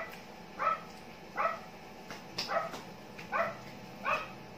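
A dog barking over and over at an even pace, about one short bark every three-quarters of a second.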